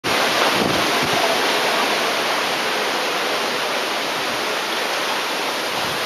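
Typhoon storm wind rushing through the leaves of a tree canopy: a loud, steady hiss of noise, with gusts buffeting the microphone about a second in.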